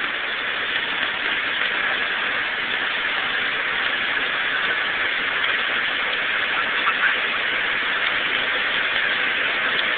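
Steady noise inside a Volkswagen Voyage sedan's cabin at about 190 km/h: engine, wind and tyre noise blended into one even rush that holds its pitch and level throughout.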